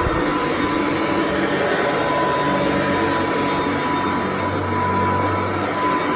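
Kirby D50 upright vacuum cleaner running steadily as it vacuums carpet, a constant motor whine over the rush of air. The motor's front bearing has been replaced, and the owner says it sounds normal now.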